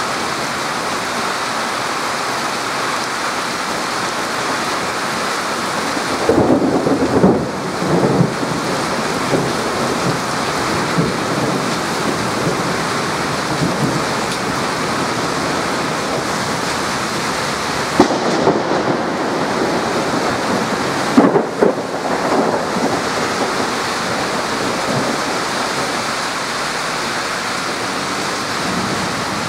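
Heavy downpour pouring steadily onto a flooded street, a constant hiss of rain. Thunder breaks in twice, about six seconds in and again around eighteen to twenty-two seconds in.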